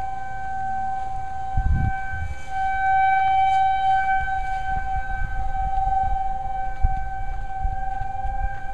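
Outdoor tornado warning siren sounding a steady wail at one pitch, its loudness swelling and easing a little. Low rumbling runs underneath and is loudest about two seconds in.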